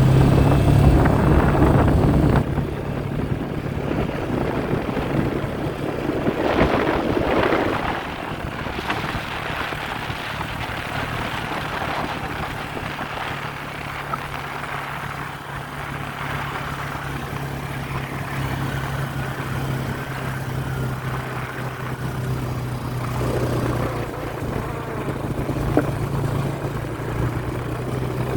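Engine of a small farm vehicle running steadily as it is driven across a field, louder for the first couple of seconds.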